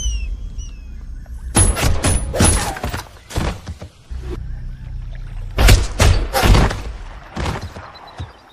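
Cinematic soundtrack effects: a low rumble under two clusters of heavy booming hits, the first a little under two seconds in and the second about halfway through, fading near the end.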